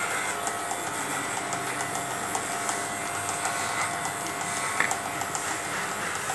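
Corded electric pet clippers running steadily as they shave through a dog's long coat, with one sharp click about five seconds in.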